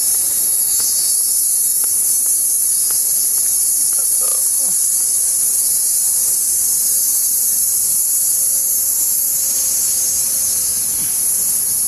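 A chorus of cicadas, a steady high-pitched drone that does not let up.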